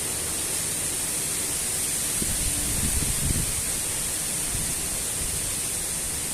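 Strong wind blowing with a steady hiss, gusting and buffeting the microphone with a low rumble about two to three and a half seconds in.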